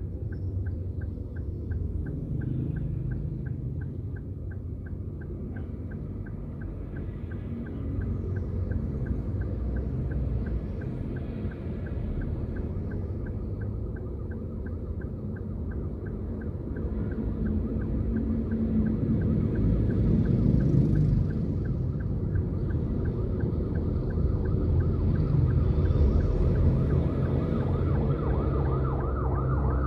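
Engine and road rumble heard inside a moving car, rising and falling, with a steady, fast ticking throughout.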